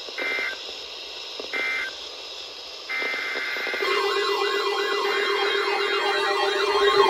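Emergency Alert System broadcast starting: two short two-tone digital data bursts of the SAME header, a little over a second apart. Near the middle comes a brief steady tone, then a siren-like warbling attention tone over a steady lower tone, which carries on and gets louder.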